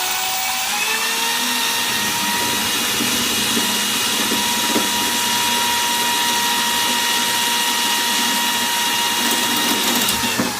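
Corded electric drill running at full speed with a steady high whine while drilling a hole in the snowblower's sheet-metal plate with a cheap drill bit. The motor winds down near the end.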